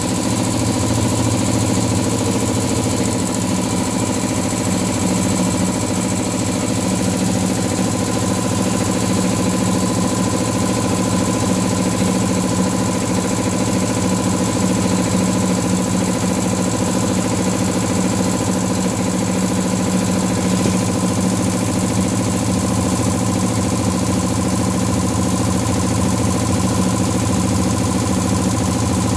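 Blackridge 2.5 HP belt-drive twin-piston air compressor running steadily on its first charge-up: the electric motor drives the pump through the belt as the tank fills and pressure climbs. The running is very consistent, with no change in pitch or level.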